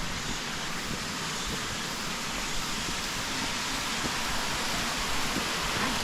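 Waterfall: a steady rush of falling water, slowly growing a little louder.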